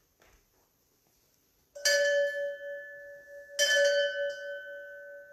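A bell struck twice, about two seconds apart, each strike ringing on with a clear, lasting tone.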